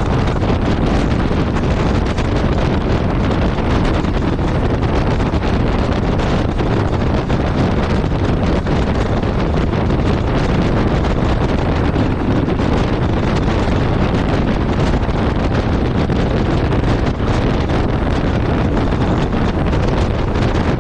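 Steady wind rush on the microphone of a motorcycle moving at highway speed, with the Yamaha Ténéré 700's parallel-twin engine and road noise blended beneath it.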